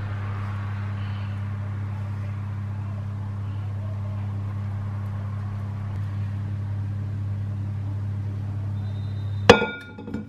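A steady low hum, as of a kitchen appliance motor, under the pouring of batter into a metal loaf pan. Near the end a sharp clink, as the wire-handled spatula is set down on the pan, and the hum stops.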